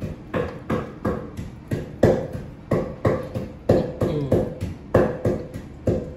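A long metal spoon knocking against a large aluminium cooking pot and a stainless-steel bowl while stirring and scooping food: a steady run of clanks, about three a second, each with a short metallic ring.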